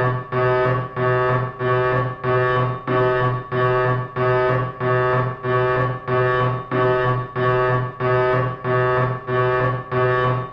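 Security alarm sounding a low, buzzy tone of fixed pitch in even pulses, about five every four seconds, each pulse cut by a short break.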